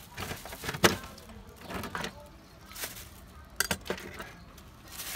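Scattered light clicks and clinks with a brief rustle, the sounds of items being handled at a food stall.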